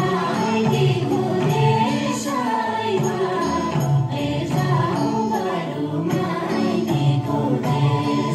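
Nepali Sorathi folk song: voices singing a flowing melody over a steady repeating rhythm.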